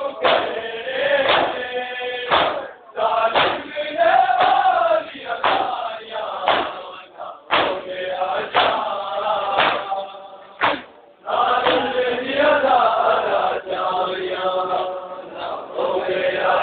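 Group of men chanting a noha, a Shia mourning lament, in unison, with sharp slaps of hands on bare chests (matam) about once a second.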